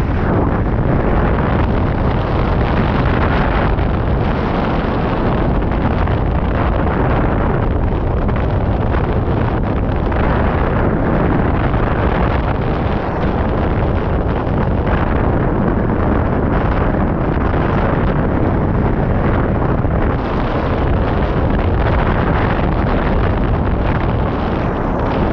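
Loud, steady rush of wind buffeting the microphone of a camera mounted on a hang glider in flight, with a deep, unbroken rumble.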